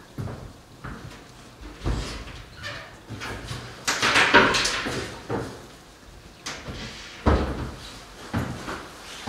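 Shovel work in a farm trailer loaded with soil: separate knocks and thumps, and a longer scraping, rushing noise about four seconds in that is the loudest sound.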